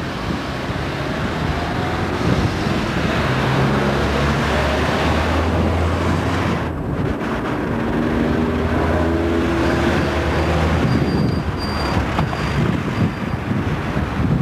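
Wind blowing on the camcorder microphone, with a low engine hum that rises about four seconds in and fades about eleven seconds in.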